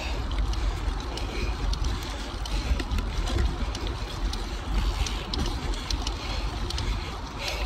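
A Cervelo Aspero gravel bike's 650b wheels and 47c tyres rolling fast over a dirt singletrack, under a steady rumble of wind on the microphone. A few light ticks and rattles from the bike come through now and then.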